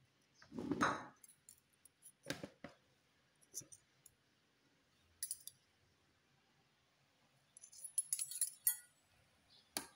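Scattered clicks and light metallic clinks as a Miyako rice cooker's lid is unlatched and swung open, with a brief handling noise about a second in and a cluster of bright clinks about eight seconds in.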